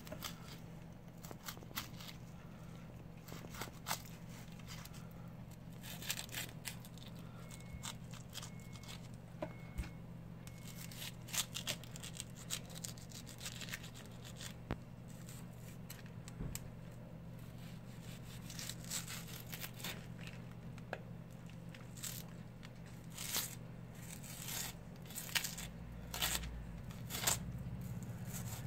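A long knife cutting and scraping through a bluefin tuna collar, pulling through flesh and skin along the bone in irregular short scrapes and clicks. A steady low hum runs underneath.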